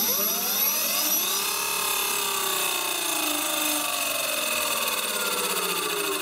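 Electric scooter hub motor spinning its raised wheel: a whine that rises in pitch as the wheel spins up over the first second or so, then slowly falls as it winds down. This is a test spin to feel for vibration while the wheel is dynamically balanced with a stick-on weight.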